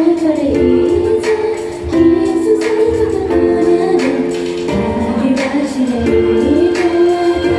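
Idol group singing a pop song live, several voices together over a backing track with a steady drum beat.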